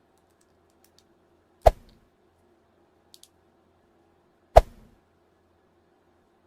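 Two sharp knocks about three seconds apart, with a couple of faint clicks between them, from small tools and plastic headset parts being handled on a work surface.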